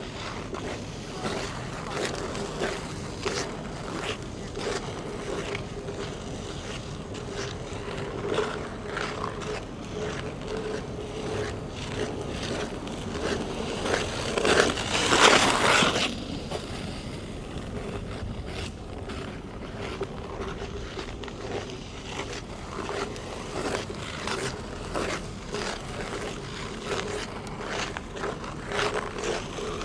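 Steel ice-skate blades cutting and scraping across hard natural black ice, stroke after stroke in an uneven rhythm. About halfway through comes one longer, much louder scrape lasting a second or two.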